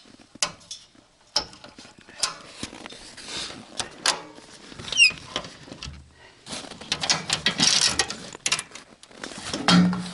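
Clicks, knocks and rustling of gear being handled in a snowmobile's under-seat storage box: the seat lid and latch worked, a metal canister knocking, mittens and fabric shuffled. There is a short squeak about five seconds in and a burst of clatter near the end.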